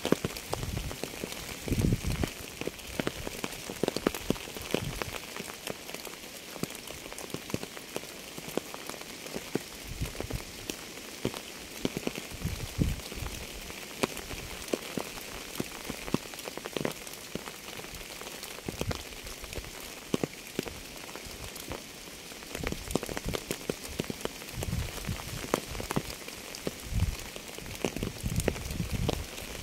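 Steady rain falling on a surface: an even hiss dotted with many sharp individual drop taps. Occasional dull low thumps come through, more of them near the start and in the last few seconds.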